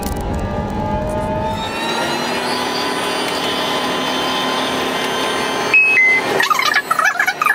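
Driverless metro train running on its track, a steady whine of several tones over the rumble, the low rumble dropping away about two seconds in. Near the end a two-note falling chime sounds, followed by a louder, busier jumble of sound.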